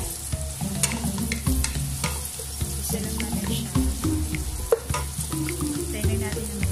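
Sliced onions sizzling in hot oil in a metal pot as a wooden spatula stirs them, with irregular scraping clicks from the spatula. Background music plays underneath.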